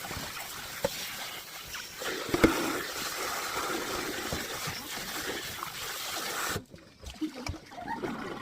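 Water running and splashing steadily, cut off suddenly about six and a half seconds in, followed by a few light knocks.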